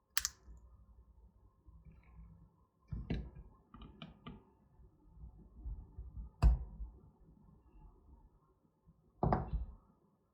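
Plastic car remote-key shell being pried open with a tool along a seam stuck with fast glue: separate knocks and clicks, a sharp click at the start, a quick handful about three to four seconds in, the loudest knock about six and a half seconds in, and another near the end.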